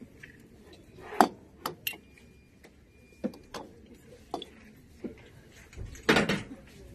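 Irregular light taps and clicks of a hand touching glass jars on a shop shelf. The loudest knock comes about a second in, and a short cluster of knocks comes near the end.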